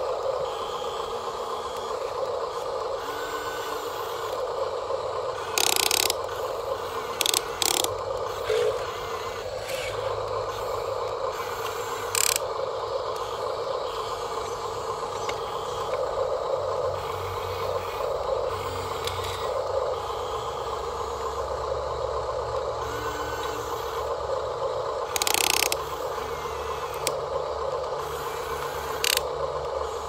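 Electric gear motors of a Huina radio-controlled excavator whining steadily as the boom, arm and bucket move. There are several brief clattering bursts as dirt drops from the bucket into the dump truck's bed.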